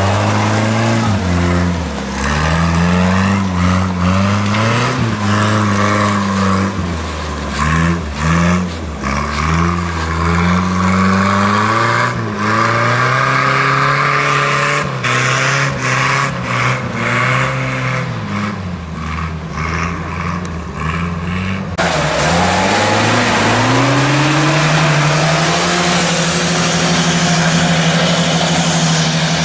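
UAZ-469 off-road vehicles' engines revving up and down as they churn through deep mud, with scattered knocks. About 22 seconds in, another UAZ takes over: its engine climbs in pitch and then holds a steady, high pull.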